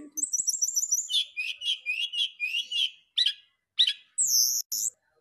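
Brown-chested jungle flycatcher singing: a quick run of high twittering notes, then a string of lower warbled notes, a few separate notes, and a longer high note near the end.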